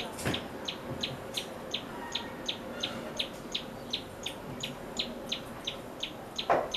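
Tailorbird singing: a loud, even series of short, high, sharp notes repeated about three times a second. A brief, louder thump comes near the end.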